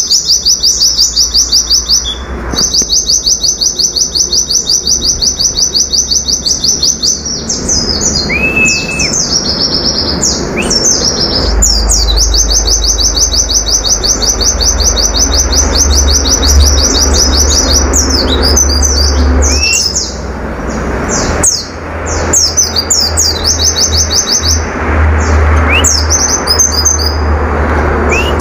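White-eye (pleci) singing its rapid-fire 'nembak' song: long, very fast trills broken by varied sweeping chirps and a few lower whistled notes.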